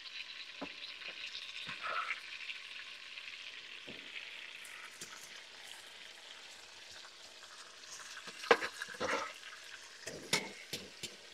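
Raw beef cubes sizzling lightly in melted butter in an enameled Dutch oven. A few sharp knocks and scrapes come near the end as the meat is pushed in with a metal bench scraper.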